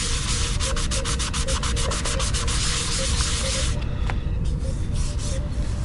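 Sandpaper rubbed briskly back and forth over hardened filler on a prop tricorder body, in quick even strokes that ease off and turn sparse about four seconds in.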